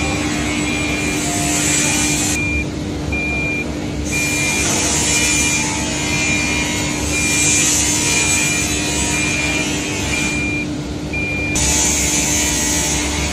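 Lock and hinge milling machine running: a steady motor hum under cutting noise that swells and drops away several times. A short high beep repeats about twice a second and stops near the end.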